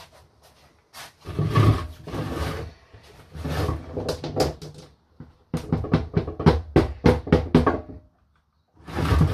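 Small metal pot being shaken and tapped over a plastic tub, its contents rattling out as the last of the ground aluminium powder is emptied. Two stretches of rattling come first, then a quick run of sharp knocks from about halfway.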